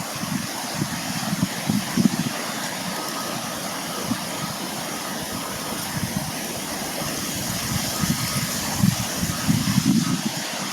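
Wind buffeting the microphone outdoors: an irregular low rumble of gusts over a steady rushing hiss.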